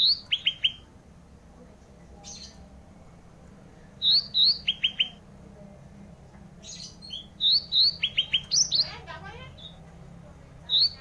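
Songbird known in Indonesian bird-keeping as 'ranting', singing vigorously in loud, high phrases: two quick rising notes followed by three or four short falling notes. The phrase repeats about every three to four seconds, with a few shorter extra notes between phrases.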